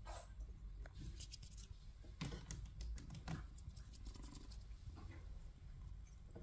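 Faint scratches and clicks of a British shorthair kitten's claws and body moving against a wicker basket bed, in two short runs in the first half.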